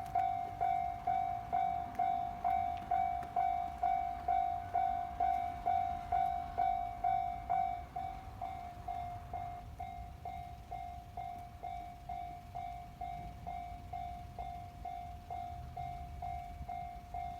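Japanese railway level crossing warning bell ringing its electronic 'kan-kan' tone about twice a second, dropping in volume about eight seconds in and ringing on more quietly.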